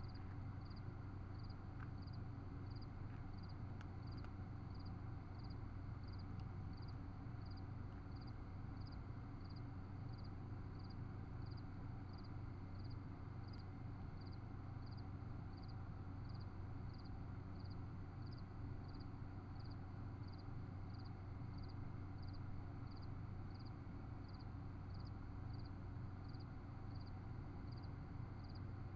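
A cricket chirping steadily, about three even chirps every two seconds, over a faint constant low hum.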